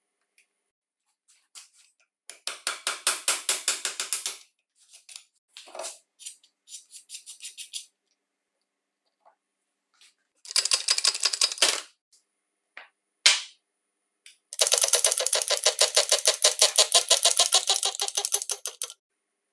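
Rapid metallic clicking at about ten strokes a second, in three bursts, the longest about four seconds near the end. This is tools working on a circular saw's gear and bearing assembly, with a single sharp knock between the second and third bursts.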